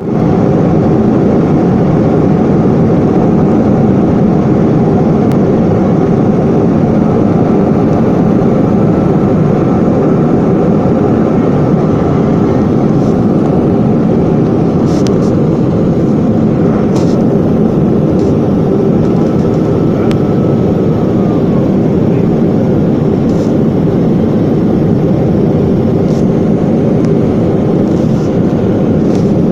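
Airplane engines running with a loud, steady rumble during takeoff. A faint thin whine sits above the rumble and slides down and fades about two-thirds of the way through.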